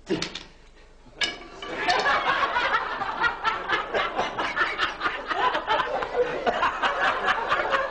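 Hearty laughter breaks out about a second in and goes on loudly in quick, repeated bursts.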